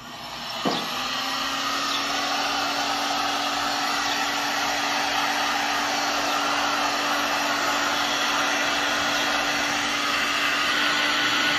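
Electric heat gun switched on with a click just under a second in, then running steadily: a blowing fan with a constant motor hum, its hot air pushing wet epoxy floor resin around.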